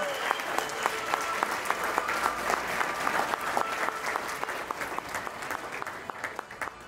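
Guests applauding, with many hands clapping that gradually thin out and fade away toward the end.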